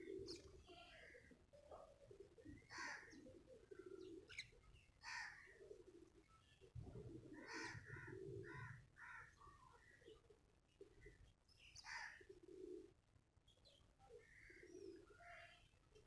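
Faint birdsong: short, scattered house sparrow chirps, with repeated lower cooing notes.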